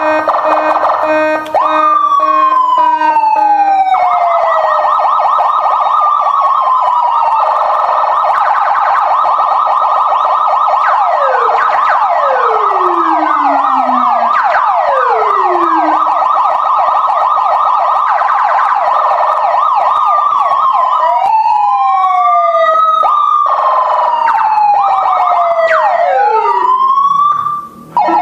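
Aftermarket 15-sound, 5-tone electronic horn module sounding through a loudspeaker, running through siren patterns: a rapid warble, long falling sweeps, and near the end slower rising and falling wails. It drops out briefly just before the end.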